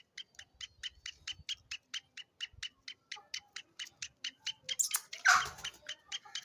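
A francolin (teetar) calling a fast, even run of short clicking notes, about six a second, with a louder rough burst about five seconds in.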